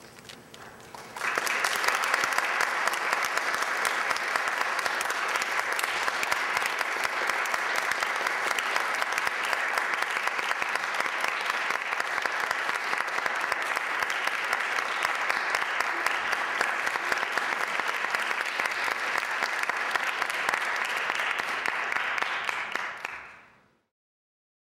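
Theatre audience applauding, starting suddenly about a second in and holding steady, then fading out near the end.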